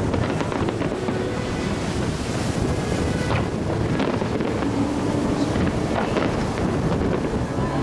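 Fireworks display: a dense, continuous rumble of overlapping bursts with some crackle, with wind noise on the microphone.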